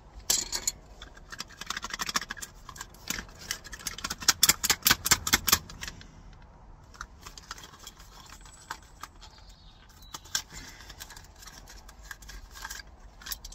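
Cardboard pencil box and carpenter's pencils being handled, with quick clicks and rattles and a dense run of clicking a few seconds in. After that, quieter handling with a few scattered clicks.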